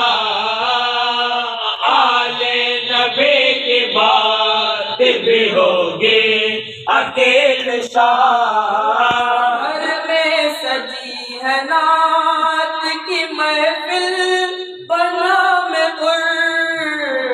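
Men's voices chanting devotional verse without instruments, a naat or manqabat with long held notes that slide up and down, pausing briefly twice.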